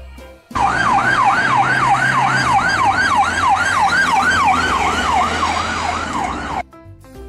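Ambulance siren on an emergency run, sounding a fast yelp that rises and falls about three times a second, over low road noise. It starts suddenly about half a second in and cuts off abruptly about a second before the end.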